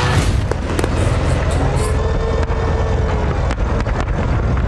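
Fireworks bursting over a river: a few sharp bangs and crackles, clustered early and again near the end, over a steady low rumble.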